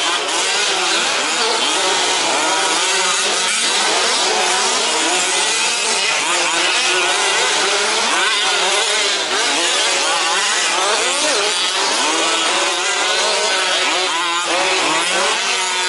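Several 1/5-scale petrol RC trucks racing with their small two-stroke engines running. The engines rev up and drop back over one another, so the pitch keeps rising and falling.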